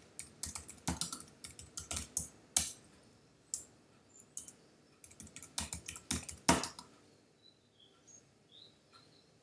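Computer keyboard typing in quick bursts of keystrokes, with only a few faint taps in the last couple of seconds.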